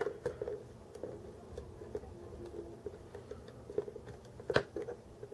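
Small plastic figure parts clicking and tapping as they are handled and pressed together, with scattered light clicks and the loudest click near the end.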